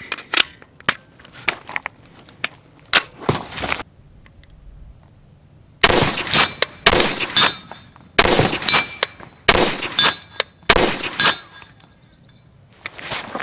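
A CZ Scorpion Evo 9mm pistol firing five single semi-automatic shots about a second and a half apart, each ringing out with a short echo. Quieter clicks and knocks come in the first few seconds, before the shots.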